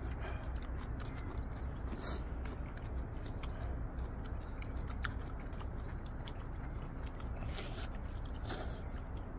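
Several people chewing and slurping ramen noodles, with many small mouth clicks and short slurps about two seconds in and twice near the end, over a steady low rumble.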